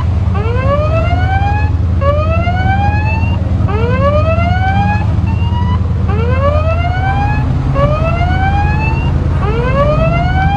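A ship's siren whooping: a rising sweep about a second and a half long, repeated about every two seconds, over the steady low drone of ship engines.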